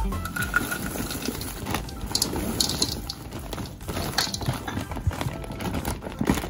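Popped microwave popcorn being shaken out of its paper bag into a plastic bowl: the paper bag rustling and crinkling while the popcorn tumbles in with irregular light clicks.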